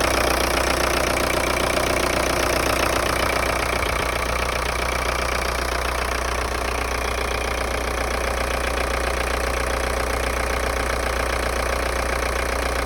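VW AFN 1.9 TDI four-cylinder turbodiesel, swapped into a VW T3, idling steadily.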